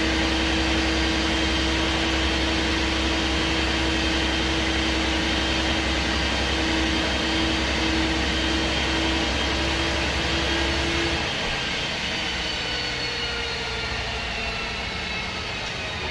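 MAN SD202 double-decker bus with its MAN D2566 MUH straight-six diesel running under way, a steady engine drone with a steady whine over it. About eleven seconds in the low drone and the whine drop away as the engine comes off load, and the bus runs on more quietly.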